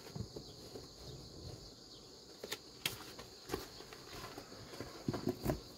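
Faint scattered taps and rustles of handling, a few of them close together near the end, over a steady high-pitched hiss.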